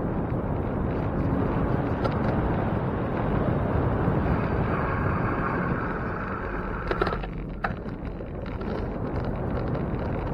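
Steady rush of wind and road noise on a riding bicycle's microphone, with a faint whine from about four and a half seconds in and a couple of sharp clicks about seven seconds in.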